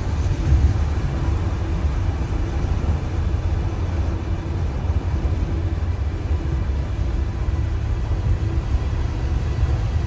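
Steady road noise of a car driving, heard from inside the car: a constant low rumble with a fainter hiss of tyres and air above it.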